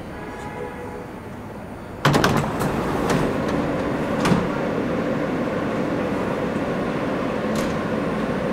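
NYC subway train standing at an elevated platform with its doors open. The train's equipment hums quietly at first; about two seconds in, a sudden louder mechanical rush with a few clicks starts and then holds steady.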